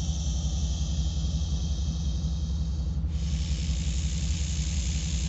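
Steady low rumble of an idling vehicle engine, with a faint steady hiss above it.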